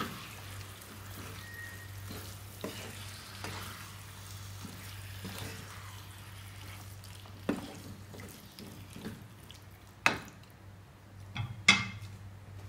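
Wooden spatula stirring mutton liver in thick masala in a frying pan, with a soft sizzle and scattered soft knocks against the pan. Near the end come a few sharp knocks as the stirring stops and the spatula is put down on a plate.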